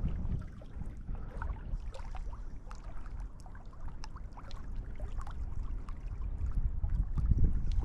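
Wind buffeting the microphone: a low rumble that eases through the middle and builds again near the end, with scattered faint ticks.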